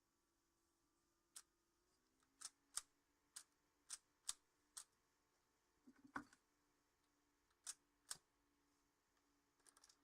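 Prototype gas blowback airsoft carbine firing single shots: sharp short pops at irregular intervals, with a brief rattling cluster about six seconds in. The blowback is not yet working properly, so the action is not fully recoiling.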